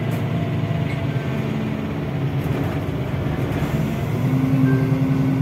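NefAZ city bus driving along, heard from inside near the front door: a steady low drivetrain hum with road noise. The hum gets a little louder about four seconds in.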